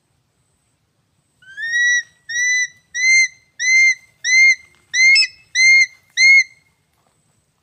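An eagle calling: a series of eight loud whistled notes, each a short note that rises and then levels off, about one and a half a second, starting about a second and a half in and stopping near the end.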